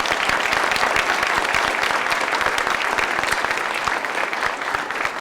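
Audience applauding: dense, steady clapping that cuts off suddenly at the end.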